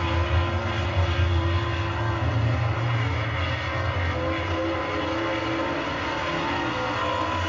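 Dirt late model race cars' engines running together in a pack, a steady loud drone whose pitch wavers slightly as the cars race on the dirt oval.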